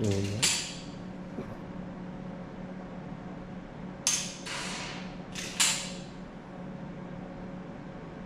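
9mm Springfield pistol dry-firing an iTarget laser training cartridge: sharp metallic clicks from the pistol's action, in close pairs near the start, about four seconds in and about five and a half seconds in. A steady low hum runs underneath.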